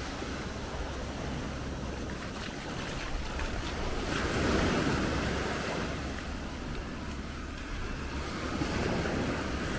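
Sea waves washing in, swelling about halfway through and again near the end, with wind rumbling on the microphone.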